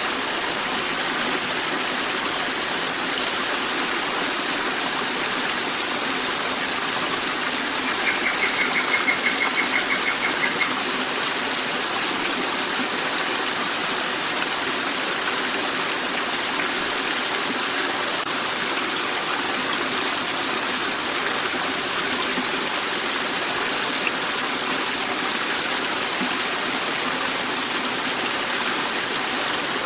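Forest river flowing steadily with an even rush of water. About eight seconds in, a rapid high-pitched pulsed trill runs for roughly two and a half seconds.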